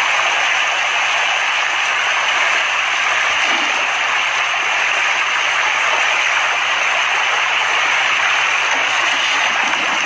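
A dense mass of fish churning and splashing at the surface of a pond, a steady, even rush of splashing water.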